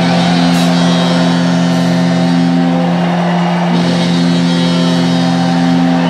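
Pulling truck's diesel engine running at steady, unchanging revs, held on the start line while hooked to the sledge.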